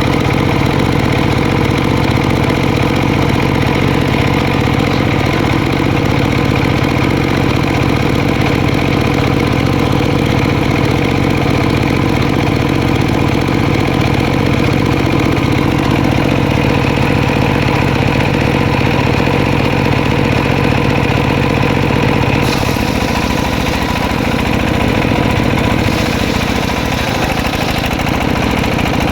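Engine-driven circular sawmill running steadily with a deep, even hum. About three-quarters of the way through, the low hum drops and a brighter hiss comes in.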